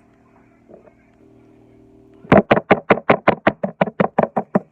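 An egg being knocked rapidly against the rim of a small bowl to crack it: about twenty sharp taps, roughly eight a second, starting about two seconds in.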